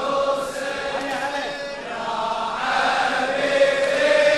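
Male voices chanting the refrain of a Shia latmiya lament, drawing out one long wavering melismatic note between 'ya' and 'Hussein'.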